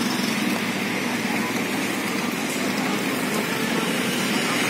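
Steady street traffic noise from passing road vehicles, slightly louder near the end.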